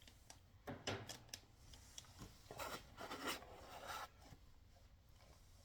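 Faint handling noises from unpacking parts out of their box: rubbing and scraping of packaging with a few light clicks and knocks, dying down after about four seconds.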